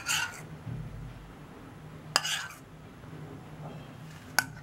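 A steel spoon clinking against a ceramic bowl while scooping melted ghee into a pan: three sharp clinks about two seconds apart, over a faint steady low hum.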